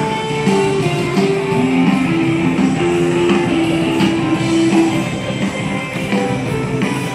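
Rock music led by guitar, with held notes that change pitch every second or so.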